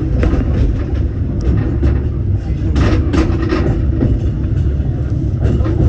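Disneyland Paris Railroad train running along the track: a steady low rumble with scattered clicks and clanks, more of them about halfway through.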